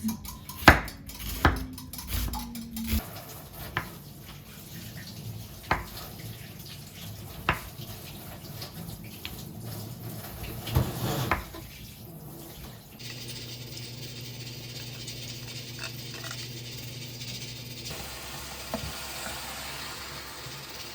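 Kitchen cooking sounds: pots, dishes and utensils clinking and knocking, with some running water. About thirteen seconds in these give way to a steady low hum.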